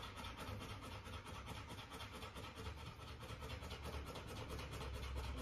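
Quiet room tone: a steady faint low hum with light rustling, and no distinct sound standing out.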